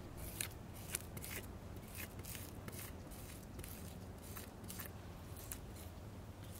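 Cotton swab rubbing over the marble surface of a sculpted bust in short, dry, scratchy strokes, about two or three a second, as the stone is cleaned of surface dirt.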